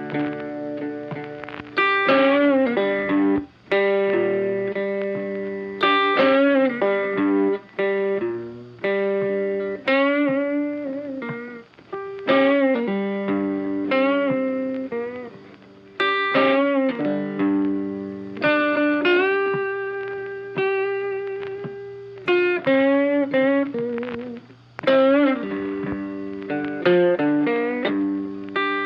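Background music: a funky track of plucked guitar phrases over a bass line, notes struck in short bursts every second or two.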